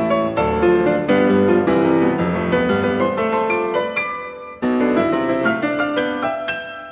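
Background solo piano music, a steady run of notes that breaks off briefly about two-thirds of the way through.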